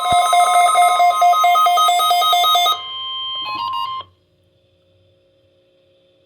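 Emergency alert tones from a NOAA Weather Radio weekly test: a steady high alert tone with a rapid electronic alarm beeping over it, several beeps a second. The beeping stops a little under three seconds in, and the tone cuts off sharply about four seconds in, leaving faint hum.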